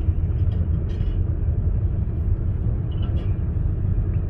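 Steady low rumble of a Subaru Outback driving, heard from inside the cabin, with a few faint ticks.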